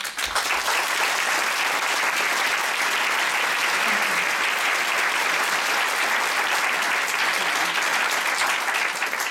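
Audience applauding, breaking out all at once and holding steady throughout.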